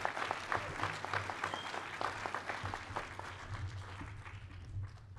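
Audience applauding, the clapping thinning and dying away toward the end.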